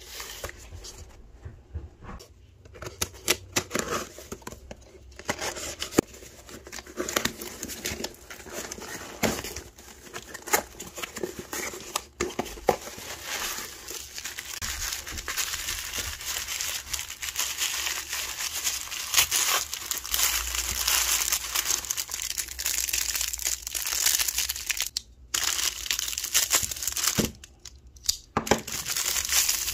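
Close-up unboxing sounds: a cardboard box handled and opened and teal tissue paper crinkled and pulled out. Scattered taps, scrapes and clicks for the first dozen seconds give way to steady, dense crinkling for most of the rest, with a couple of brief pauses near the end.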